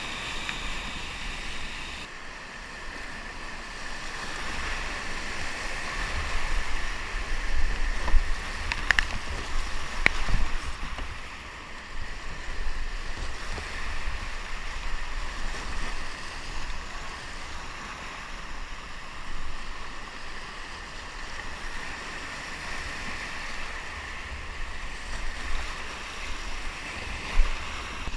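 Whitewater rapids rushing and splashing around a kayak running down a rocky river gorge, with two sharp knocks about nine and ten seconds in.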